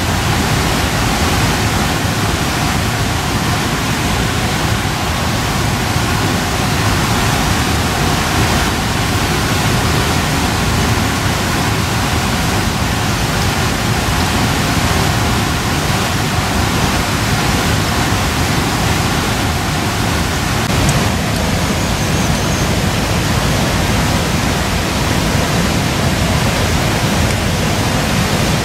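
Steady, loud rushing noise that stays even throughout, with no distinct events.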